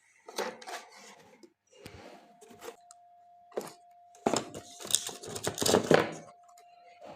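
Irregular clicks, clacks and rustling of things being handled, loudest about four to six seconds in, over a steady hum that starts about two seconds in.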